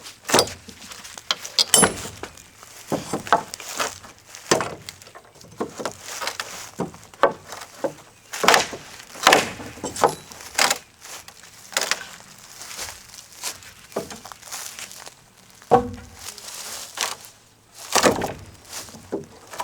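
Old wooden deck boards being pried up and broken apart: irregular knocks, cracks and thuds of wood, several a few seconds apart.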